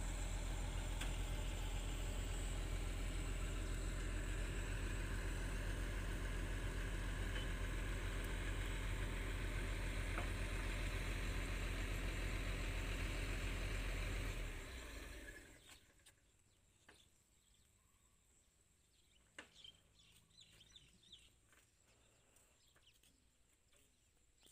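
An excavator's diesel engine running steadily with a low hum, which fades out about fifteen seconds in. After that it is near silence with a few faint clicks.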